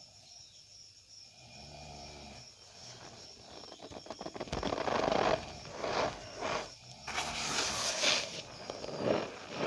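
Cornstarch powder being pressed and squeezed by hand, giving squeaky crunches. The first few seconds are quiet, then a run of separate crunches starts about halfway in and grows louder.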